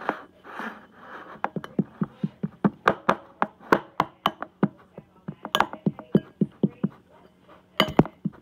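A fork clinking against a bowl in quick repeated taps, about three a second, as it mashes hard-boiled egg yolk. The loudest clinks come near the end, after a short pause.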